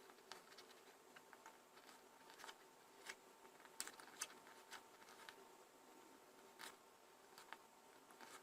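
Dried figs being cut into small pieces: faint, irregular clicks and taps of the blade, with a few sharper ones near the middle.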